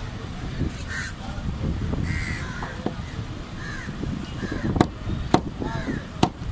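Heavy curved cleaver chopping raw tuna on a wooden block: three sharp strikes in the second half, about half a second to a second apart. Repeated cawing calls and a murmur of voices run underneath.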